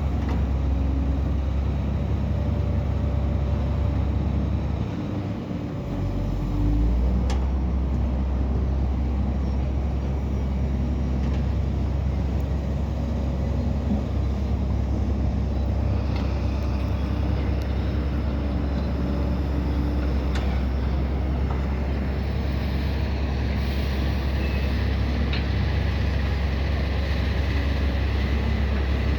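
Heavy diesel engines of earthmoving machinery running steadily with a deep rumble. The rumble dips briefly about five seconds in, then comes back stronger, with a few sharp clicks or knocks here and there.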